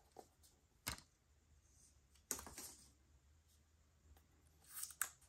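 Faint handling noises of an Apple TV box and its contents being unpacked: small clicks, a sharp knock about a second in, a brief scraping rustle a little past halfway, and a rustle ending in a click near the end.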